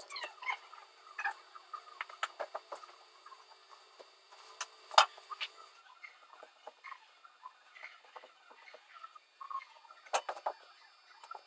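Scattered clicks, taps and short squeaky scrapes of hand work on a drywall ceiling, with one loud sharp click about five seconds in and a quick run of clicks near the end.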